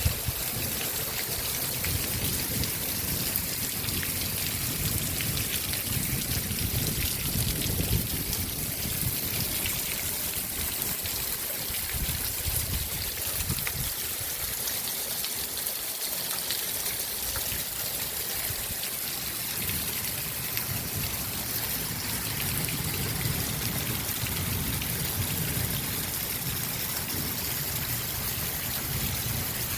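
Heavy rain falling steadily, thousands of drops striking surfaces, with water running and trickling.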